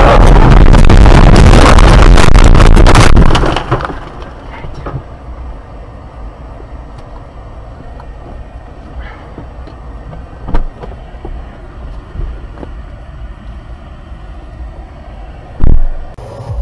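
A car crashing off the road, heard from inside the cabin: a very loud, distorted crashing and scraping for about three seconds that cuts off abruptly. After that the cabin is much quieter, with a few knocks and one loud thump near the end.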